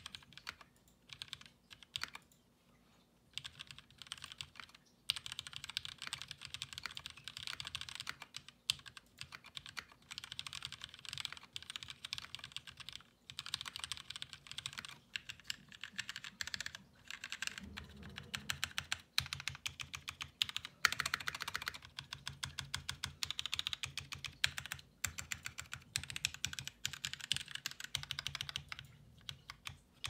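Typing on a TX1800 custom mechanical keyboard with Cherry MX Black linear switches lubed with Krytox 105, a brass plate and Signature Plastics DCS keycaps. Scattered keystrokes at first, then a fast, continuous run of key clacks from about three seconds in.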